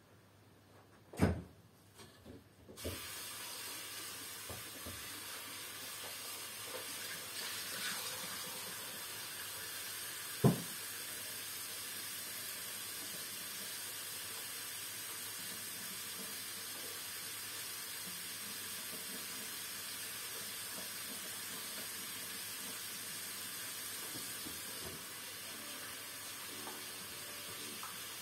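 A steady, even hiss like steam or running water starts abruptly about three seconds in and keeps going. There are a few soft knocks about a second in and a single sharp knock about ten seconds in.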